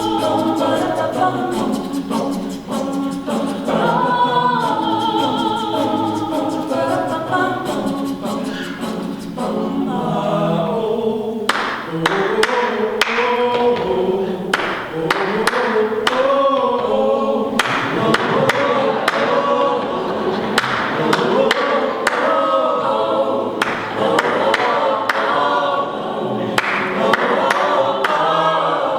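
A cappella choir singing. About eleven seconds in, the music turns more rhythmic, with many sharp percussive accents through the singing.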